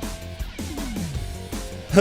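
Background music with plucked guitar, a few notes held and sliding, and a short sharp sound at the very end.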